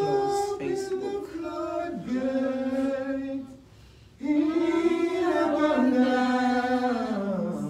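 Unaccompanied singing in long, sliding held notes, in two phrases with a short break about four seconds in.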